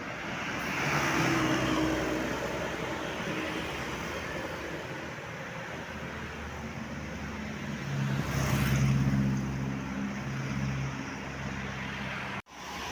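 Road traffic passing at the roadside: a steady hiss of tyres with engine hum that swells as a vehicle goes by about a second in and again, louder, around eight to nine seconds in. The sound cuts out briefly near the end.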